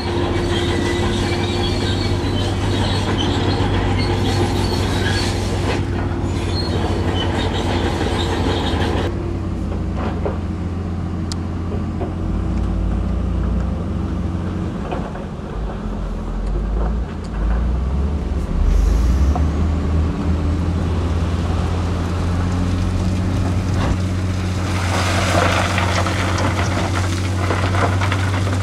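Heavy diesel earthmoving machinery, dump trucks and a bulldozer, working stone fill. A steady low engine drone runs throughout with a held tone over it, and a rougher, noisier layer sits on top for the first third and again near the end.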